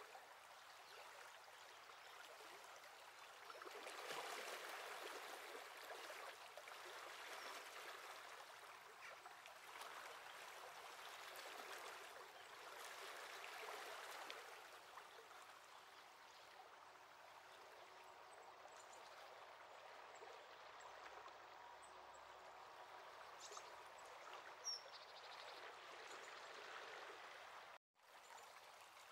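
Faint, steady rushing of a swollen brook running fast in spate after flooding, swelling and easing a little. The sound cuts out for a moment near the end.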